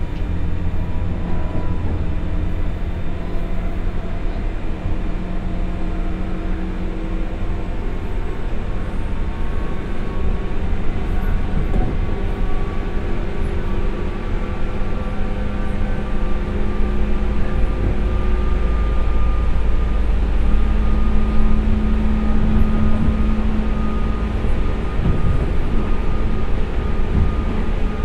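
Onboard a JR West 201 series thyristor-chopper electric train accelerating, heard inside its motor car: the MT60 DC traction motors and gears whine in several tones that slowly rise in pitch, over a steady low rumble.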